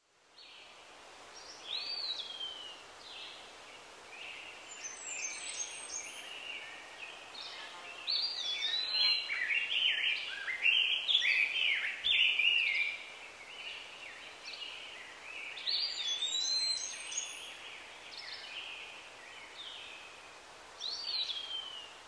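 Wild birds calling in forest: repeated high whistled calls that slide down in pitch, with a busy stretch of overlapping calls in the middle, over a faint steady hiss.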